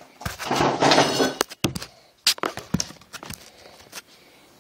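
Handling noise: a loud rustling scrape lasting about a second, then scattered knocks and clicks as the phone is moved around and set up.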